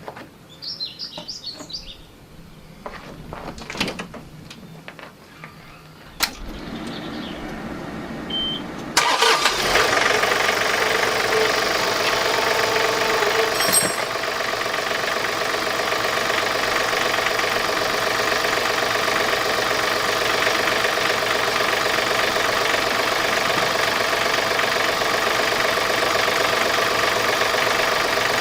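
A few light clanks, then the John Deere 3046R compact tractor's three-cylinder diesel cranks and catches about nine seconds in, settling into a steady idle just after an oil change.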